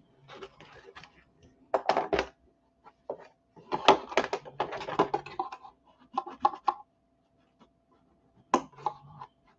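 Cardstock being handled while a hand tool is scraped along its glued edges to press them down: irregular bursts of scratching and rustling, with a faint steady hum underneath.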